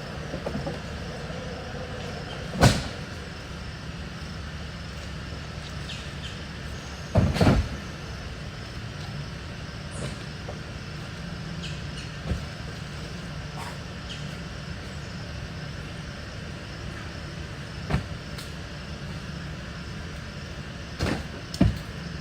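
Household junk and debris being thrown onto a truck: a few loud crashes and thuds, two close together near the end, over a steady background hum.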